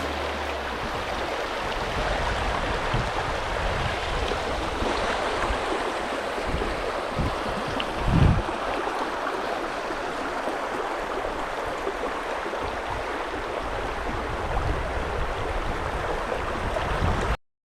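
Shallow river riffle water rushing steadily over stones. A dull thump comes about eight seconds in, and the sound cuts off abruptly near the end.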